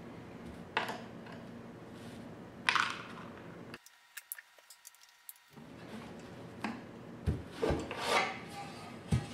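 Screwdriver scraping and clicking as it backs out the top cover screws of a MID:COM 8000 unit, then the cover being handled and lifted off, with a few short knocks and scrapes in the second half.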